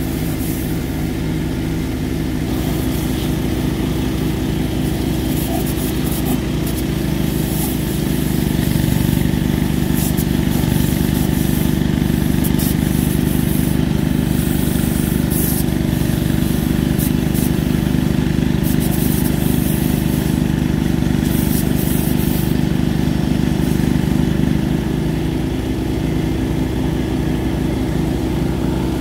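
Small engine of a pressure washer running steadily, with the hiss of a water jet spraying a bare Cummins 6BT engine block. The engine sound grows louder and heavier from about eight seconds in and drops back a few seconds before the end.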